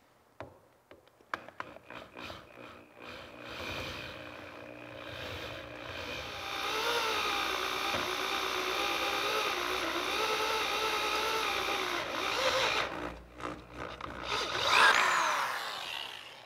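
Electric drill boring a 5/8-inch hole through a lead ballast keel: the motor runs under load with its pitch wavering, stops about three-quarters of the way through, then revs briefly and winds down near the end.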